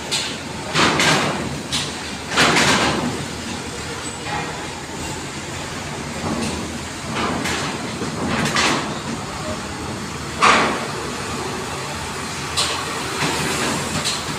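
Trucks rolling off a ferry over its steel loading ramp. Their wheels bang and rattle across the ramp plates in about ten irregular metallic clanks, the loudest about ten and a half seconds in, over a steady background hum.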